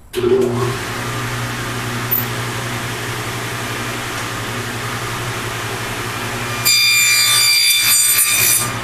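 Table saw switched on, coming up to speed and running steadily. About two-thirds of the way in, the blade cuts through wood for about two seconds, louder and higher-pitched, as a box joint finger is cut. Then it runs freely again.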